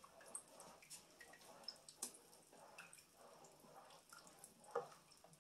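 Faint wet stirring of thick vegetable beef soup with a wooden spoon in an enamel pot, with a few light clicks of the spoon against the pot.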